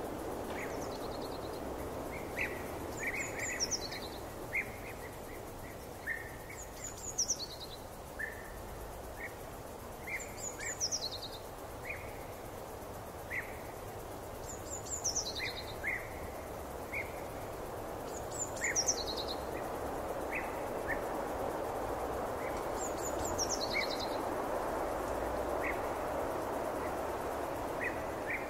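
Forest ambience: a steady soft background hiss with birdsong over it. One bird repeats a short, high phrase that falls in pitch, about every four seconds, while shorter chirps come in between.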